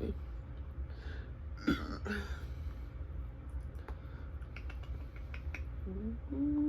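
Close-up eating sounds: chewing with small wet mouth clicks and light taps of utensils, then a brief low hummed "mm" near the end.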